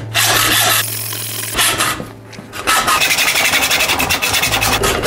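Hacksaw cutting through a bicycle fork's steerer tube clamped in a saw guide: back-and-forth rasping strokes. They ease off briefly near the middle, then run fast and steady to the end.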